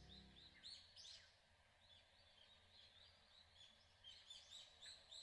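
Faint chirping of small birds: many short calls and quick down-sweeping notes, irregular and overlapping. The tail of background music dies away in the first half-second.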